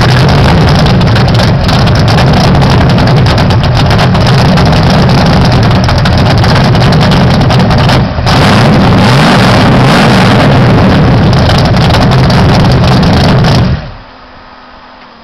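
Small-block Chevy 355 V8 with a 650 double-pumper carburettor, Vic Jr intake and 3-inch exhaust into race bullet mufflers, idling loud and rough with an uneven lope: the carb is freshly set up and still needs final adjustment. It dips briefly about eight seconds in and stops near the end.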